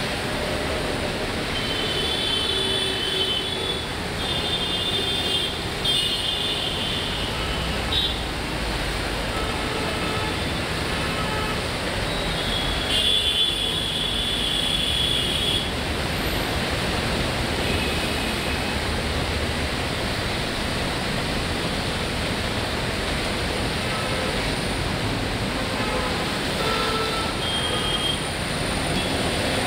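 Road traffic hissing steadily on a rain-wet road. Several short horn honks cut through it, the longest about 13 seconds in, with a low rumble of a heavy vehicle in the first half.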